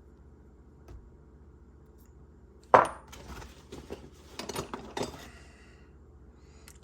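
Loose steel sockets clanking against each other while being rummaged through in a bag: one sharp clank nearly three seconds in, then a run of smaller clinks and rattles for a couple of seconds.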